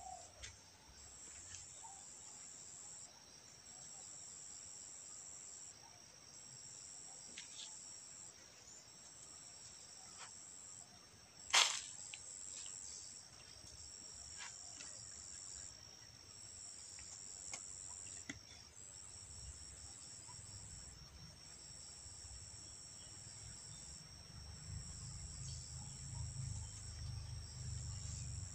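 Outdoor insect chorus, likely crickets: a steady high-pitched trill with a second, higher trill pulsing on and off every second or two. A single sharp click stands out about a third of the way in, and a low rumbling noise builds toward the end.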